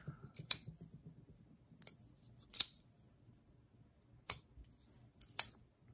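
Benchmade Bugout axis-lock folding knife being opened and closed to test its pivot action. Its blade snaps into place with about six short, sharp metallic clicks, some in quick pairs, a second or so apart.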